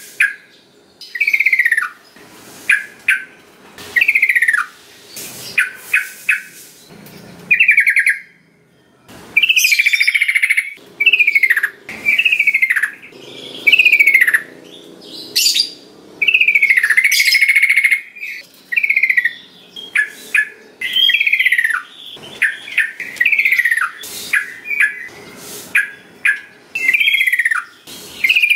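Sooty-headed bulbul (trucukan) song: short, clear whistled notes that slide downward, run together in quick phrases with brief pauses between them.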